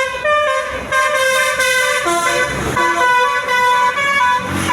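Basuri telolet multi-tone bus horn playing a tune of short stepped notes, several horn tones sounding at once.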